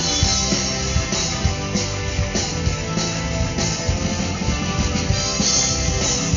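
Live rock band playing an instrumental passage with no vocals: electric guitar and bass guitar over a drum kit keeping a steady beat with regular cymbal hits.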